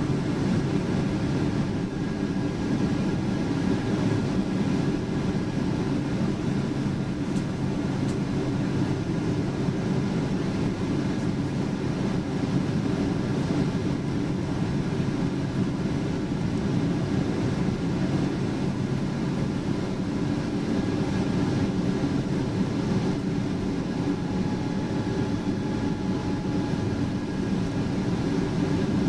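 Boeing 777-200 cabin noise: a steady low rumble of engines and airflow with faint steady tones above it.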